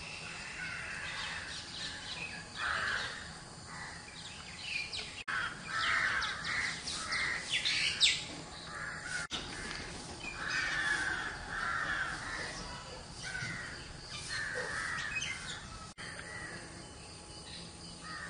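Birds calling outdoors: repeated calls from several birds, with higher chirps among them. The sound breaks off briefly three times.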